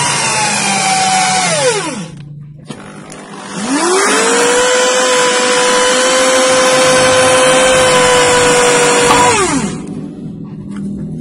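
Electric drill spinning a gun barrel with its muzzle pressed onto coarse sandpaper to crown it. The motor winds down about two seconds in, starts again and runs at a steady pitch with a scraping hiss for about six seconds, then winds down near the end.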